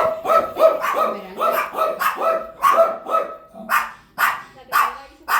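Dogs barking in a rapid run of pitched barks, about three a second. A little under four seconds in, a run of sharper, louder barks about twice a second takes over.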